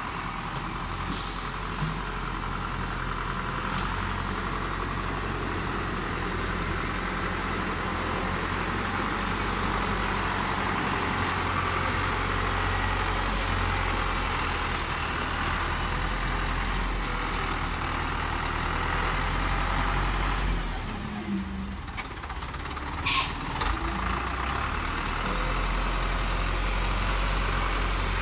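A Thaco dump truck's diesel engine runs at low speed as the truck creeps along, giving a steady low drone. The drone dips briefly about three-quarters of the way through, and a few short, sharp noises follow.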